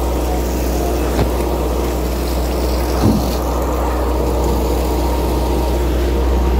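Steady low drone of the fishing trawler's diesel engine, with seawater pouring and splashing from the deck washdown hose. A short knock comes about a second in, and a louder thump about three seconds in.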